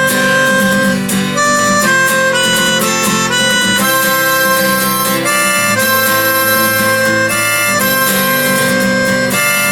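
Instrumental folk-blues band intro: a harmonica playing a melody in held notes over a strummed acoustic guitar.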